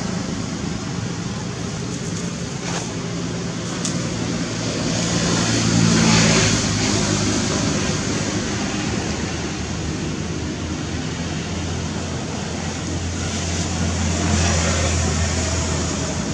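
Steady hum of a motor vehicle engine running nearby, with road-traffic noise that swells about six seconds in and again near the end.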